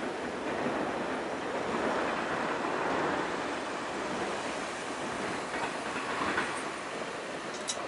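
Steady rumble and rail clatter of a Norfolk Southern freight train moving away past the crossing, easing off slightly in the second half. A car drives over the crossing near the end.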